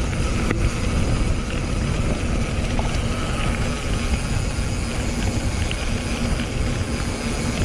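Riding noise from a mountain bike ride: wind rushing over the action camera's microphone and the bike moving over the trail, a steady low rumble with a few faint clicks.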